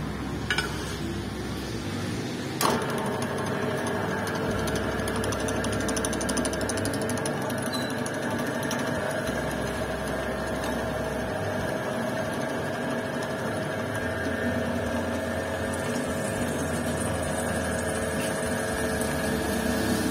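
Drilling machine's electric spindle motor running with a steady whine. There is a sharp click about two and a half seconds in, after which the whine holds steady.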